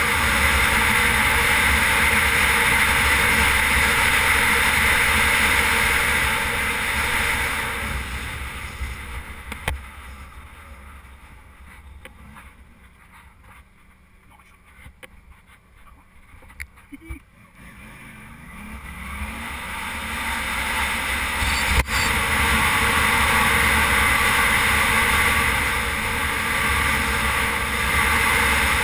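Wind rushing over a helmet-mounted microphone, with the Suzuki V-Strom 650's V-twin engine running at speed. The noise fades away about a third of the way in, stays quiet while the bike slows for a turn, then builds back up as it speeds off again. A single sharp click comes about two-thirds of the way through.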